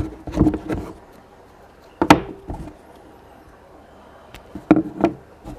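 Handling noises of fishing line and a hook being worked by hand on a tabletop: three short clusters of light knocks and rustles, with one sharp click about two seconds in.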